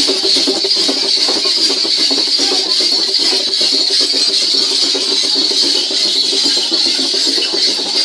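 Dense, loud din of a crowd at a traditional dance, with many voices mixed with quick, irregular clicks and rattles, heavily distorted by the phone microphone.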